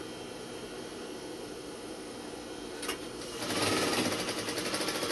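Sewing machine stitching fast through cap fabric for about a second and a half near the end, a quick even run of needle strokes, after a light click.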